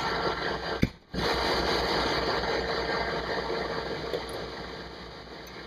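Cab noise of a fire engine driving through heavy rain: an even hiss of rain and road over the low, evenly pulsing run of the engine, with a steady hum. The sound cuts out briefly about a second in and grows quieter near the end.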